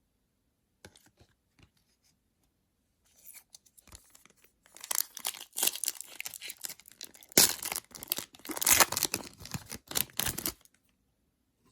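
A trading card pack's wrapper being torn open and crinkled, starting faintly about three seconds in, getting louder, and stopping shortly before the end.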